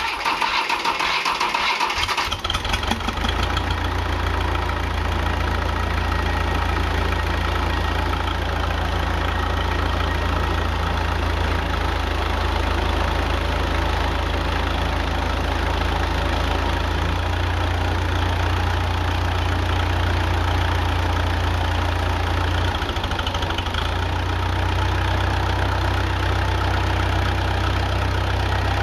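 Diesel engine of a 10 kW wood-gas generator set running steadily, dual-fuelled on wood gas with only about 20% diesel. It is noisier for the first two seconds or so, then settles into an even hum.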